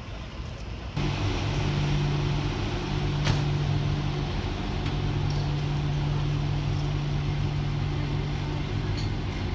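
Low, steady hum of a moored motor yacht's machinery running, coming in suddenly about a second in, with one sharp click a little after three seconds.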